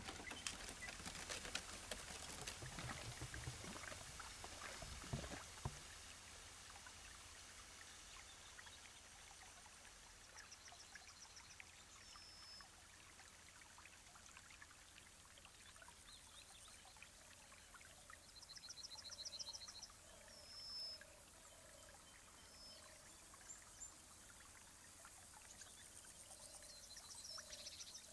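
Faint countryside ambience: a low steady hiss, with a few soft clicks in the first few seconds. Short high bird trills and whistles come now and then, a little louder about two-thirds of the way in.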